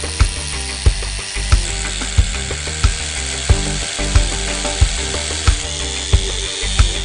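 Background music with a steady beat, a low drum hit about every two-thirds of a second under sustained tones.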